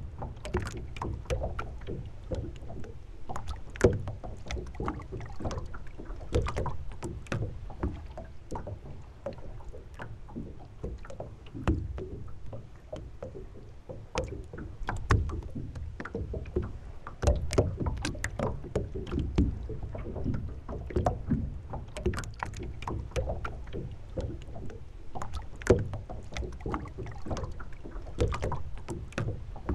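Water lapping and slapping against the hull of a moored sailboat, heard as a low steady rumble with many irregular sharp knocks and clicks.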